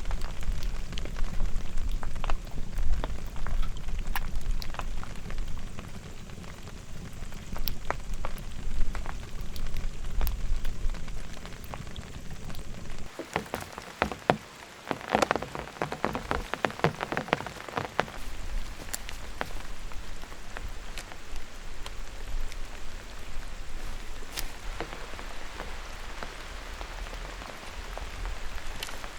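Heavy rain falling steadily, with many separate drops ticking on a surface and a thicker flurry of sharper ticks about halfway through.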